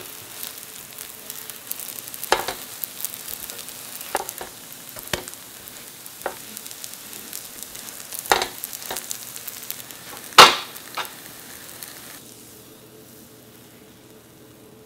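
Kale pancakes sizzling and crackling as they fry in vegetable oil in a pan, with a handful of louder pops, the loudest about ten seconds in. The sizzling cuts off about twelve seconds in.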